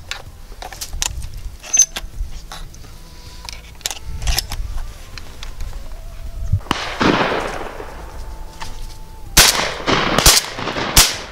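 Shotgun fired at flying ducks: one shot with a long echo about two-thirds in, then three quick shots near the end, the loudest of all. Before them come small clicks as shells are loaded into the gun.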